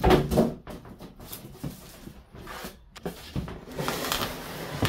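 Packaging being handled while a tiller is unboxed: a knock at the start, then irregular rustling and scraping, with a longer stretch of rustling near the end.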